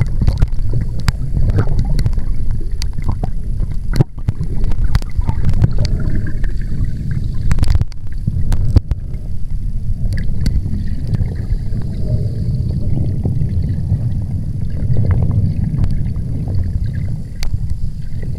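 Underwater sound picked up by a swimmer's moving camera: a loud, low rumble of water rushing against the camera, with scattered sharp clicks and knocks throughout.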